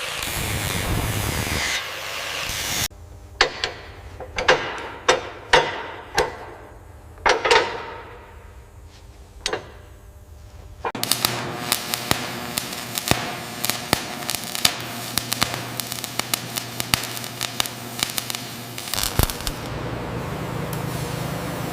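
Metal workshop sounds: about eight separate hammer blows on metal, some ringing, then rapid clattering and tapping over a steady low machine hum.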